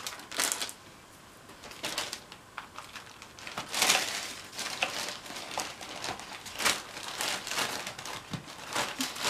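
Shopping packaging being handled, crinkling and rustling in irregular bursts, the loudest about four seconds in.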